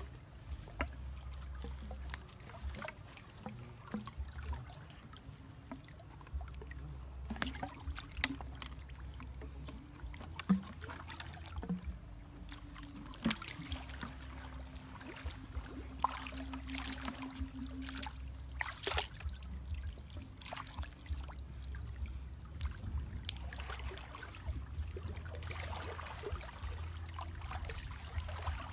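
Shallow creek water sloshing and trickling as a person wades and works a PVC pipe fish trap in it by hand, with irregular small splashes and knocks, over a low steady rumble.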